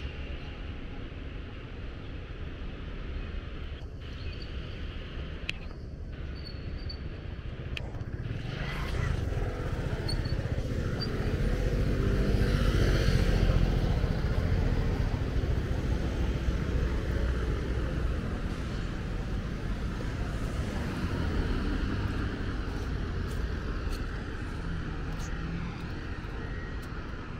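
City street traffic noise: a steady hum of passing vehicles, with one vehicle going by close. It builds from about a third of the way in, is loudest around the middle and fades away over the next several seconds.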